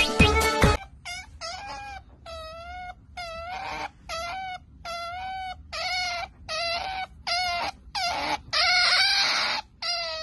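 Pet otter giving a run of high, wavering squeaking calls, about two a second, with one longer, louder call near the end. A brief stretch of background music ends about a second in.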